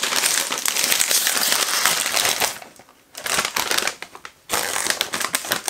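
A popcorn snack bag crinkling and rustling as it is pulled open by hand: one long stretch of about two and a half seconds, then after a short pause two shorter stretches.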